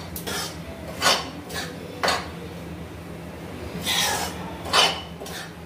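Metal spatula scraping and knocking against a metal kadhai while stirring wheat flour as it roasts for panjiri: a few separate scrapes, the strongest about four and five seconds in.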